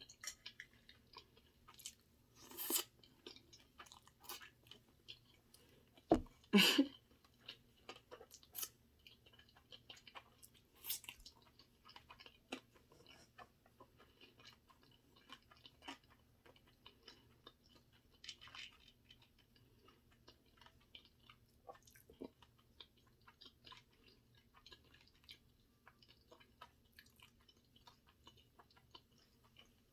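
Close-miked chewing and mouth sounds of a person eating sushi: many small wet clicks and smacks, with a few louder bites about three, six to seven, and eleven seconds in.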